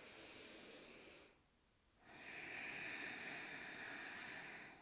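A woman breathing audibly in and out while she moves: a short, quieter breath in the first second, then a longer, louder one from about two seconds in.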